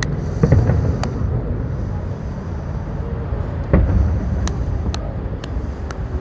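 Fireworks going off in the distance: two loud booms, about half a second and near four seconds in, with sharp pops and crackles between and after them, over a steady low rumble.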